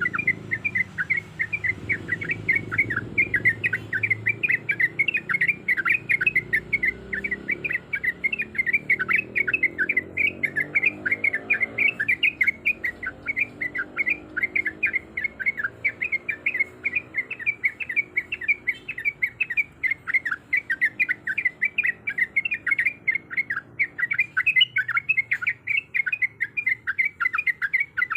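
Yellow-vented bulbul singing a long, rolling song: short, quickly repeated notes that run on without a break.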